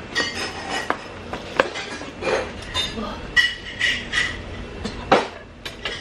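Metal spoon clinking and scraping against a bowl during a meal: scattered short clinks and knocks of tableware, a few with a brief ring, the sharpest about five seconds in.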